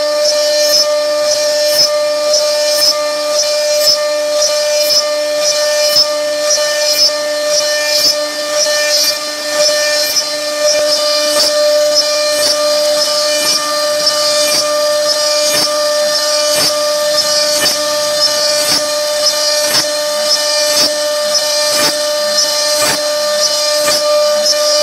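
CNC wood router's spindle running at speed while its bit cuts into a wooden board: a steady high whine with a hiss of cutting that pulses regularly.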